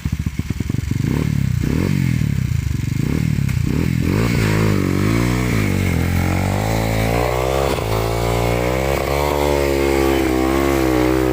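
Rusi motorcycle engine revving in a series of short throttle blips, then held at high, wavering revs, pulling hard.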